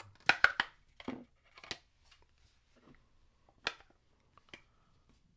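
Silicone phone case being pulled from its plastic packaging tray and pressed onto a phone: a string of short plastic clicks and rustles, densest and loudest in the first second, then a few scattered clicks.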